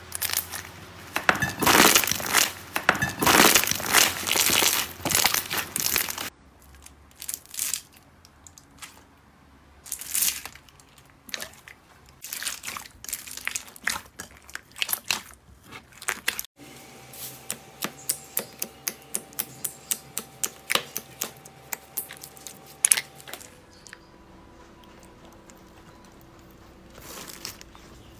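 Slime being pressed and worked by hand, making crunchy crackling and popping: a dense crackle at first, then scattered snaps and a run of quick, regular pops.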